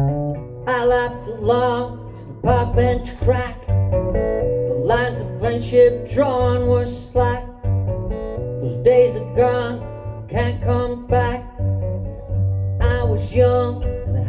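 Acoustic guitar played solo: rhythmic strummed chords ringing over a sustained low bass note.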